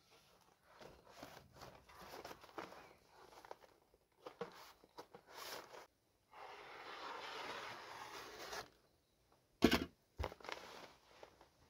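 Utility knife cutting through a mineral wool insulation slab: scratchy tearing scrapes, then one steady cut lasting about two seconds in the middle. Soon after, a sharp knock, the loudest sound, followed by a smaller one.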